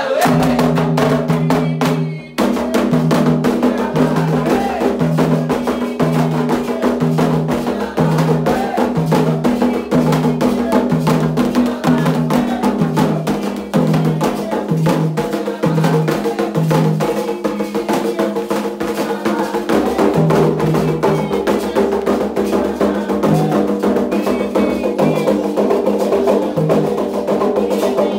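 Candomblé ritual percussion: hand drums (atabaques) beating a fast, steady rhythm, with sharp wood-block-like strikes, most likely an agogô bell, keeping time.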